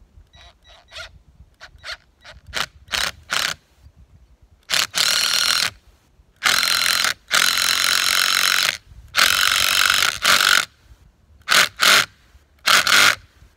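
Ridgid brushed cordless impact driver hammering as it drives a 6-inch TimberLOK timber screw into a hardwood tree trunk. It runs in bursts: several short trigger pulls at first, then four longer runs of about a second or more, then short pulls again near the end.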